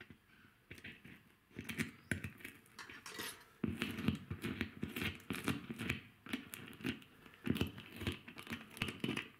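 Double-sided tape being peeled and pressed down by hand: a busy run of irregular rustles and sharp taps, getting denser and louder about three and a half seconds in.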